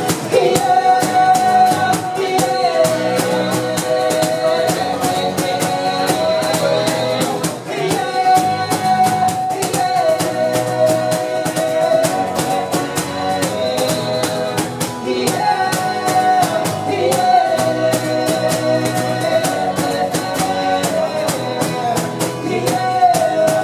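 Live band playing a song: strummed acoustic guitars and singing over a steady beat.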